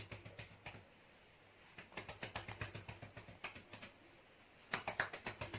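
Chest physiotherapy percussion: a nurse's cupped hands patting rapidly on a patient's back to loosen phlegm, quick taps about six a second in runs broken by brief pauses.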